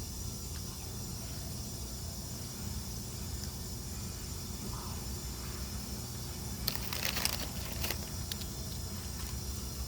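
Brief crackling from a bag of potato chips being handled and eaten, about seven seconds in, over a steady low rumble.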